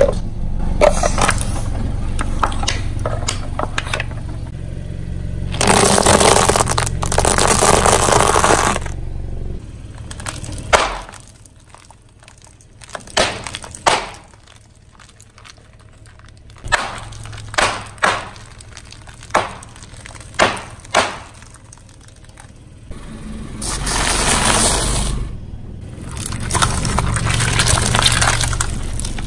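Car tyre rolling over and crushing things on concrete. First a low rumble with loud crunching of hollow plastic toy bowling pins. Then about a dozen sharp cracks as a row of wrapped candy sticks is run over, and near the end a long wet squashing of jelly.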